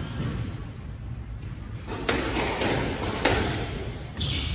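Squash rally: the ball is struck by rackets and hits the court walls, a quick series of sharp thuds starting about two seconds in, echoing in the court.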